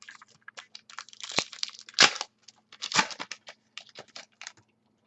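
Foil-wrapped trading card pack being torn open and its wrapper crinkled: a run of irregular crackles with three louder rips in the middle.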